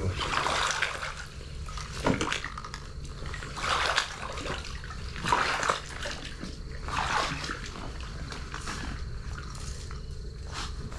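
Water splashing and sloshing in about five separate swishes, spaced a second or two apart, over a steady low rumble.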